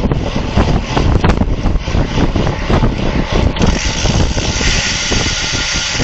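Wind buffeting the microphone of a camera riding on a road bike at racing speed, with tyre and road rumble underneath. A brighter hiss comes in a little past halfway.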